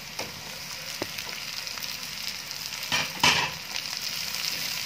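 Raw mango pieces sizzling in hot oil with fried onion and garlic in a kadhai, stirred with a plastic spatula. There is a short click about a second in and a louder scrape of the spatula through the pieces about three seconds in.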